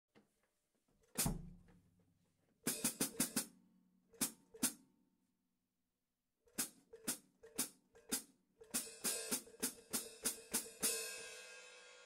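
Sabian AAX 14-inch X-Plosion hi-hat cymbals being played. There is a single stroke, then a quick flurry of hits, then two more. After a short gap comes a steady run of strokes about two a second, and the last stroke rings on and fades slowly.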